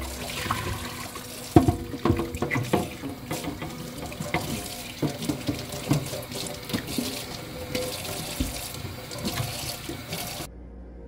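Kitchen tap running into a sink while things are washed, with frequent clinks and knocks of items handled under the water. It cuts off suddenly near the end.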